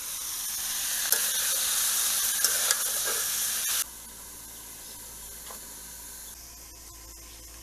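Spiny gourd pieces sizzling loudly as they fry in a wok, with a few sharp scrapes of a metal spatula stirring them. About four seconds in, the sizzle cuts off suddenly to a much quieter steady hiss.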